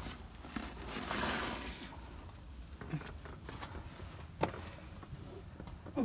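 Faint scuffing and rustling of a hiker clambering down between rock boulders: shoes and clothing scraping on the stone, with a few short sharp knocks later on.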